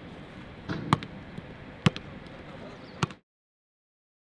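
A football struck back and forth between players in a keep-up passing drill: three sharp thuds of the ball about a second apart. The sound then cuts out to dead silence for the last second.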